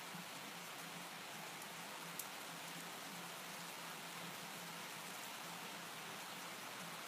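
Steady rain falling, an even hiss of rain on the street, with one faint tick about two seconds in.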